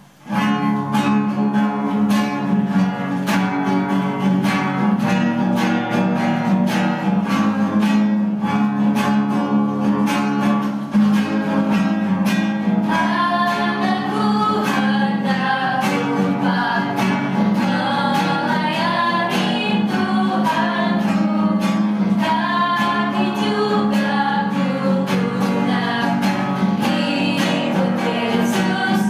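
Strummed guitar playing a children's hymn, joined about halfway in by two women's voices singing the song in Indonesian.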